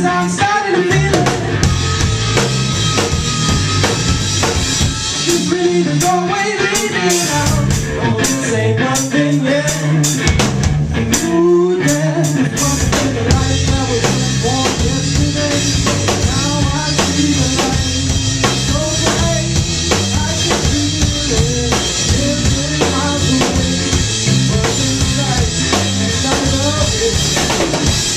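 Live blues-rock band playing on drum kit, electric guitar and bass guitar, with a lead melody line bending up and down in pitch.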